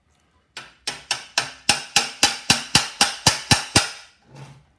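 Hammer blows on the end of a long steel threaded rod, about a dozen sharp ringing strikes at roughly four a second, driving a needle bearing out of the torsion tube of a 1974 VW Beetle ball-joint front beam.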